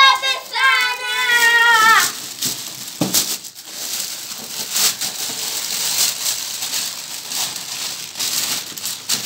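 Plastic and paper gift wrapping crinkling and rustling as children tear open sweet-filled stockings. A child's high voice calls out briefly in the first two seconds.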